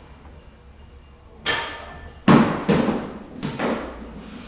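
Disc golf discs striking a chain basket: four hits in a little over two seconds, the first a ringing jingle of chains, the later ones heavier clanks and thuds.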